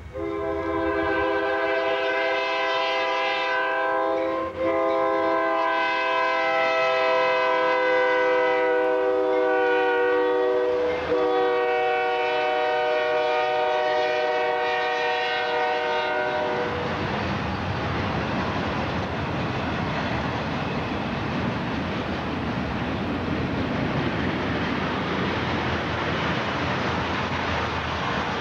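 Diesel freight locomotive's multi-chime air horn blowing three long blasts, with short breaks about four and a half and eleven seconds in. The horn stops about sixteen seconds in, and the steady clatter of a double-stack container train's wheels on the rails carries on to the end.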